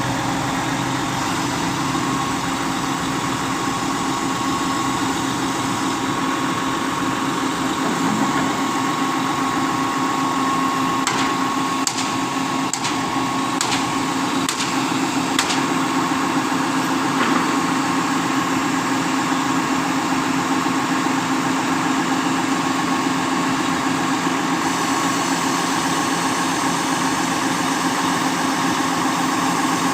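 Truck-mounted concrete pump's diesel engine running steadily to drive the hydraulics, with a steady high whine over the engine note. A handful of sharp clicks come midway.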